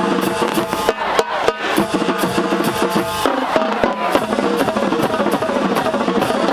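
Marching band playing its fight song, with brass and drums, and sharp bangs from aerial fireworks bursting over it.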